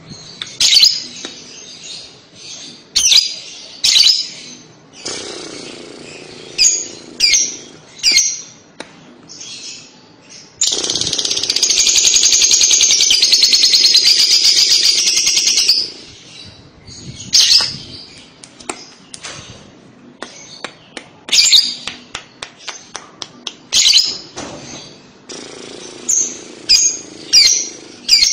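Lovebird calling: sharp short chirps, then about eleven seconds in a loud, rapid chattering trill (the kekekan or ngekek) held for about five seconds, then more short chirps.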